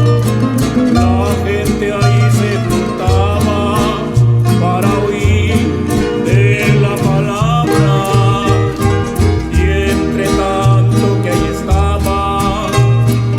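A rondalla string ensemble playing a song: guitars over a steady plucked bass line, with a melody carried above.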